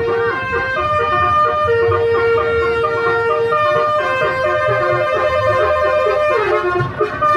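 Bus telolet horn of the basuri type playing a tune: a string of loud, held horn notes that jump from pitch to pitch, with a quick downward run of notes near the end, over a low engine rumble.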